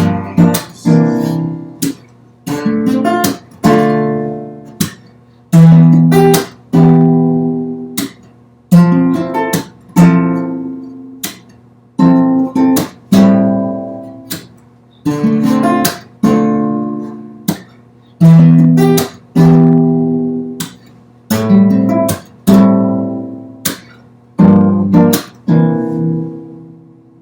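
Acoustic guitar strummed in repeated chords, each struck sharply and left to ring and fade before the next; the last chord rings out and fades away near the end.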